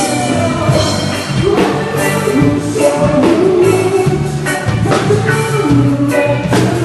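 Music with drums and sustained melodic notes, with a drum hit every second or so.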